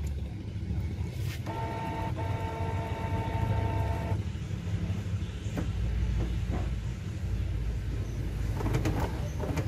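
Canon G1000 inkjet printer's motors running through their power-on initialization: a whine with a steady pitch from about 1.5 to 4 seconds in, then a lower mechanical rumble with a few clicks of the carriage and feed mechanism.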